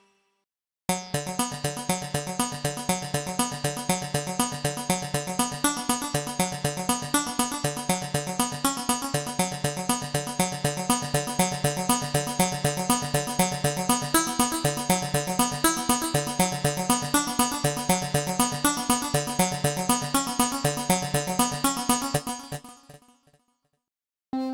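MOK Miniraze wave-slicing synthesizer plugin playing a fast, evenly repeating sequence of short notes over a steady low pulse; it starts about a second in and fades out near the end.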